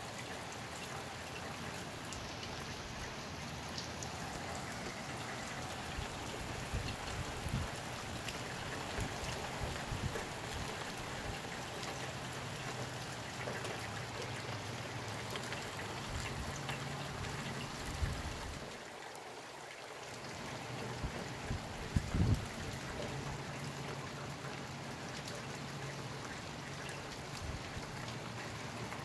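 Steady rain falling, with low gusts of wind on the microphone now and then, the strongest about 22 seconds in, and a brief lull just before it.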